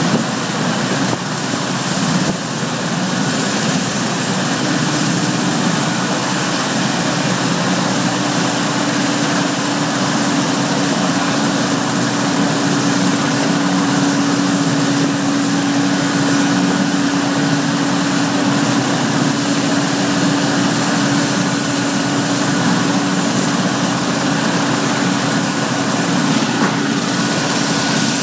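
Royal Navy Sea King rescue helicopter running on the ground: a steady turbine engine noise, held for an engine test after a repair to its No. 2 engine, with a steady droning tone joining about five seconds in. Near the end, a brief puff of breath on the microphone.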